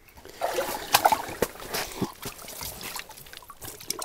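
A lake trout thrashing in an ice-fishing hole as it is hauled up and lifted out by hand, water splashing and dripping. The splashing starts about half a second in and is loudest around a second in.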